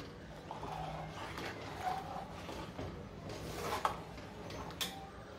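Steel spoon stirring a thick milk-and-custard mixture in an aluminium pot, faintly scraping against the pot, with a few sharper clinks.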